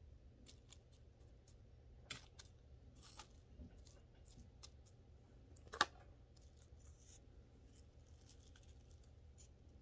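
Near silence with faint, scattered clicks and scratches of chunky perlite potting mix being worked in by hand around the base of a plant in a small pot, with one sharper click about six seconds in.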